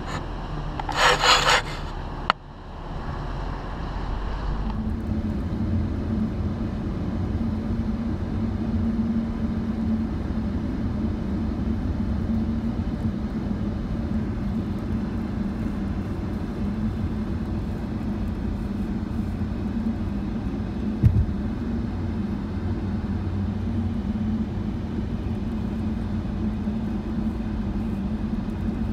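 Car driving at highway speed, a steady drone of road and engine noise heard from inside the vehicle. A brief loud hiss about a second in, and a single sharp click around twenty seconds in.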